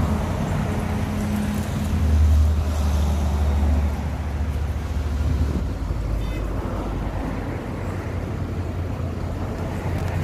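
Steady low diesel-truck rumble mixed with road traffic going by; a heavy truck passing makes it swell louder between about two and four seconds in.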